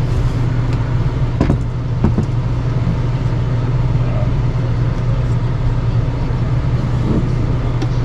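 A steady low mechanical hum, with two light knocks about one and a half and two seconds in as the inverter's metal case is handled.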